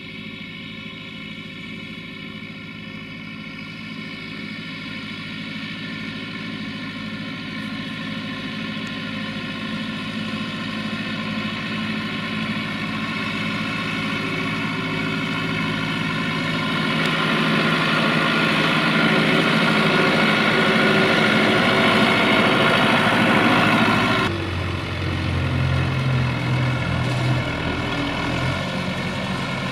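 Belarus MTZ 892.2 tractor's four-cylinder diesel engine running steadily and growing louder as the tractor approaches. About 24 seconds in the sound changes abruptly to a closer, deeper engine note.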